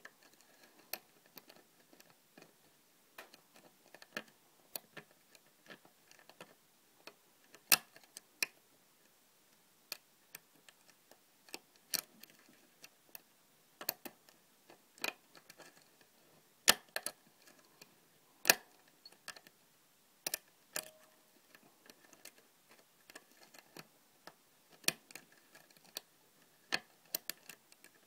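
A lock pick working the pin tumblers of a custom-pinned Yale euro cylinder: irregular light metallic clicks and ticks, with a few sharper, louder clicks among them.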